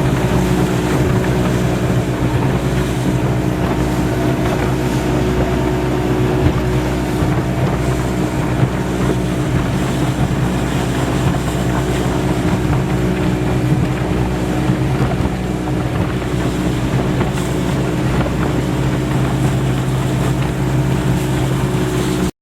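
Motorboat engine running at a steady speed while under way, with wind buffeting the microphone.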